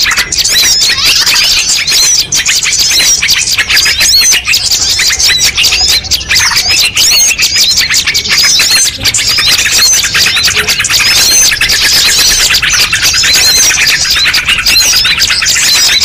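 Dense chorus of many small songbirds chirping and trilling over one another without a break, a layered bird-lure recording mixing the calls of several species.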